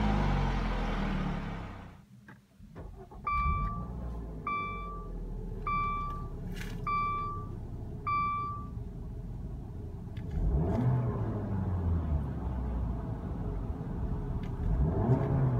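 2015 Dodge Dart GT's 2.4-litre four-cylinder engine heard at the tailpipes, its revs falling, then cut off suddenly. Inside the cabin, the dashboard warning chime sounds five times, about once a second, over the idling engine. The engine then revs up twice as the car pulls away.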